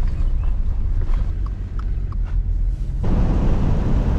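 Steady low rumble of a car driving, heard from inside the cabin, with a few faint ticks. The noise grows fuller about three seconds in.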